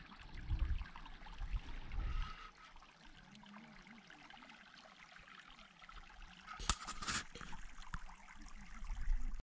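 Shallow mountain stream trickling over rocks at a lake's outlet. Wind rumbles on the microphone in the first couple of seconds and again near the end, and there are two brief knocks about seven seconds in.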